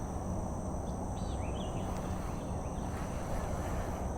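Outdoor ambience: a steady high insect drone over a low steady rumble, with a few short bird chirps about a second in.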